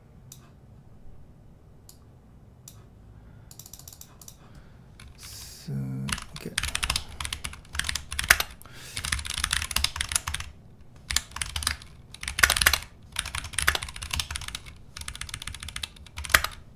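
Typing on a computer keyboard: a few scattered keystrokes at first, then rapid runs of key presses in bursts from about six seconds in.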